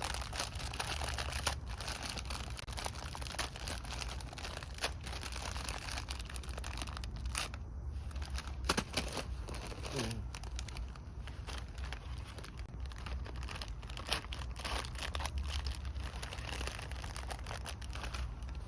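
Plastic instant-noodle packet crinkling and tearing as it is handled, a dense run of small irregular crackles over a steady low rumble.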